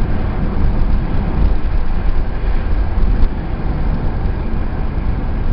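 Car driving along at steady speed, a constant low rumble of engine and road noise.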